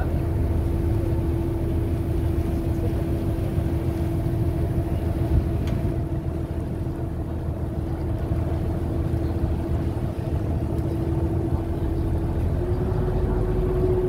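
A ferry's engine running steadily, a low rumble with a constant hum, over the wash of the boat's wake along the hull. About twelve seconds in, the hum steps slightly higher.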